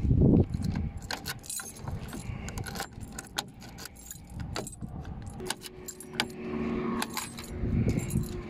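A bunch of keys jangling and clicking as a key is worked in the lock of a bus's cab door, a scatter of sharp metallic clicks and rattles. A brief low rumble at the very start.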